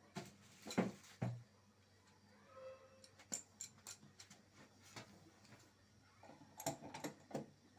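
Light clicks and knocks of a metal tap and tools being handled as the tap is screwed onto the water pipe, a few about a second in and a cluster near the end.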